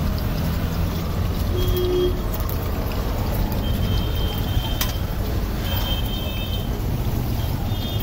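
Steady low rumble of road traffic, with a few short high chirps near the middle and the end.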